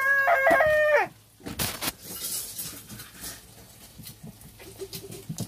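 A child's long, high-pitched held vocal cry, steady in pitch, that drops away and stops about a second in. After it comes a short rustle, then a few faint knocks and taps.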